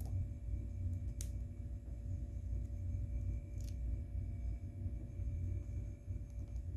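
Steady low rumble of room background noise with a faint steady hum, broken by a few faint clicks, about a second in and again at about three and a half seconds.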